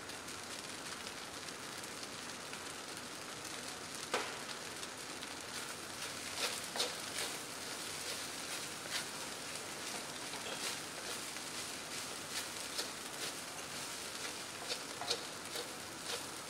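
Fried rice sizzling in a wok over a gas burner, a steady hiss, with a wooden spatula knocking and scraping against the pan now and then from about four seconds in as the rice is stirred.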